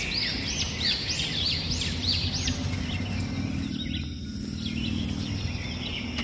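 A songbird singing a quick run of arched, rising-then-falling chirps, about three a second, fading out midway and coming back faintly near the end, over a steady low outdoor rumble.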